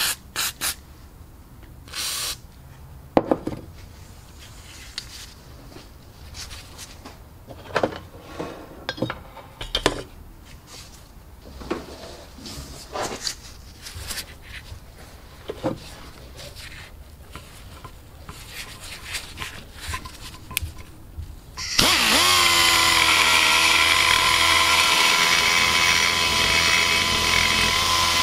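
Scattered handling clicks and rustles, then about 22 seconds in a die grinder starts up and runs with a loud, steady high whine, its burr rough-cutting the exhaust port of a cast-iron Vortec cylinder head.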